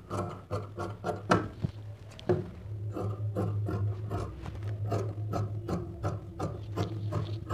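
Large tailoring shears cutting dress fabric along a marked line on a cutting table: a string of irregular snipping and rasping strokes, over a steady low hum.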